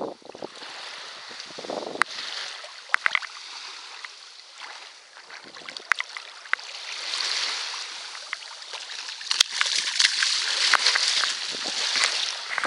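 Hooked barracuda splashing in shallow water and shallow wash sloshing over sand, with a few sharp clicks scattered through. The washing water grows louder in the second half.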